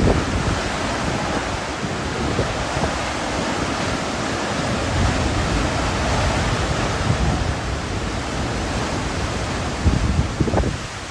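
Hurricane wind blowing hard and without a break, a dense rushing noise, with gusts buffeting the microphone in low rumbling surges that are strongest near the end.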